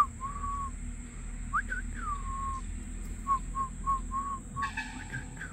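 Clear whistling: a few notes that each sweep up and slide down onto a held tone, then a run of short quick notes. A crow caws once near the end.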